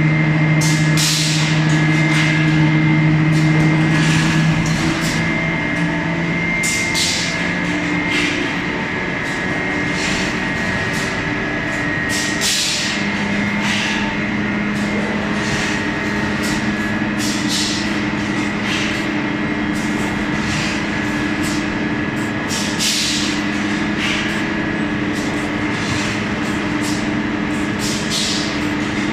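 Automatic brick cutting and stacking machinery running with a constant mechanical hum, broken by short, sharp hisses at irregular intervals, some a few seconds apart and some close together.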